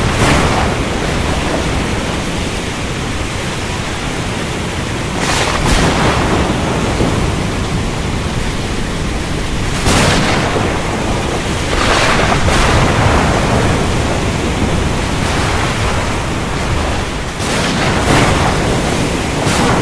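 Thunderstorm at sea: a steady rush of rain and ocean noise, with short surges of louder noise every few seconds, about five times, and a low rumble of thunder underneath.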